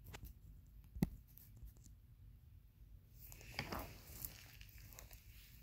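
A single sharp knock about a second in, then soft shuffling and rustling from about three seconds in: a person moving about on a rug in a small room.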